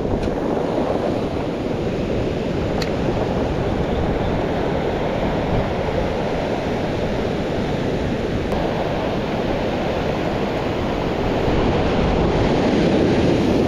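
Ocean surf breaking and washing up over a pebble beach, with wind buffeting the microphone. The wash swells a little near the end.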